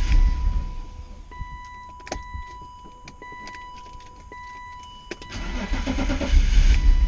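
BMW E36 M3 straight-six engine cranking and catching, fading out about a second in; near the end a second attempt cranks and fires again. It starts but won't keep running, which the owner traces to low fuel pressure, 10 psi where 40 is specified.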